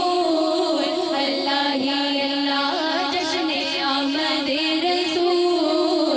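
Devotional vocal music, naat-style: voices hold long melodic notes with small ornamented turns, without clear words.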